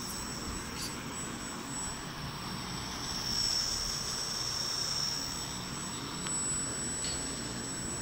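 Small electric motor of a homemade toy RC aeroplane running with its propeller, a steady high-pitched whine that swells a little around the middle.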